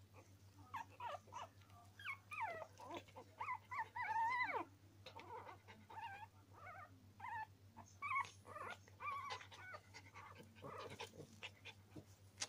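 Norwich terrier puppies making a rapid string of short, high-pitched squeaky cries that glide up and down in pitch, the longest and loudest cry about four seconds in.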